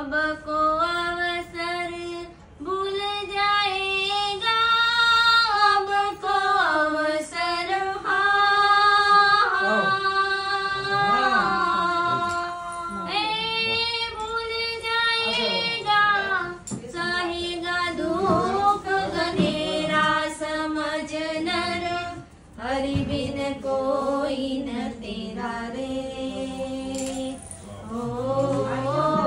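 A woman singing a song solo, one voice drawing out long held notes with short breaks between phrases.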